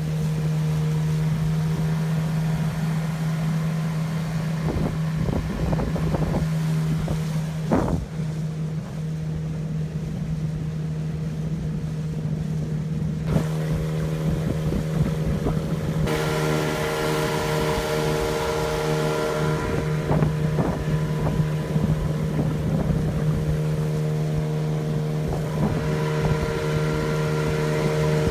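Motorboat engine running at a steady pitch under way, with wind on the microphone; the sound turns brighter about halfway through.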